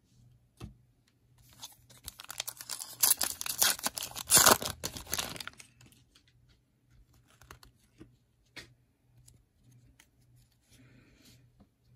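Foil wrapper of a 2021 Panini Prestige Football trading-card pack being torn open and crinkled, a dense ripping burst from about two to five and a half seconds in. Afterwards only faint ticks of the cards being handled.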